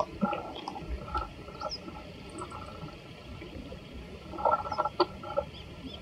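Dry leaf litter crackling in short spells as a meadow bunting forages on the ground, loudest about four and a half to five and a half seconds in. Faint, high, short call notes of a meadow bunting come between, including a quick 'chi-chi-chi' a little past two seconds in.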